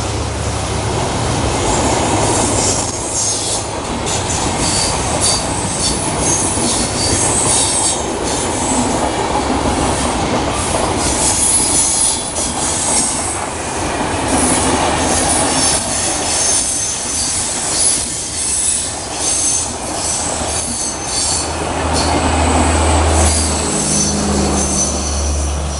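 LHB passenger coaches of a Rajdhani Express passing at speed: a continuous rumble of wheels on rail, clicking over the joints, with frequent sharp metallic wheel squeals. A low steady hum fades out in the first few seconds and comes back strongly near the end.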